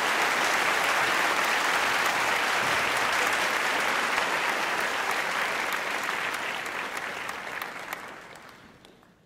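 Audience applauding, a dense steady clatter of many hands clapping that fades out over the last second or so.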